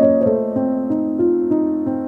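Background piano music, a melody of single notes struck at an even pace.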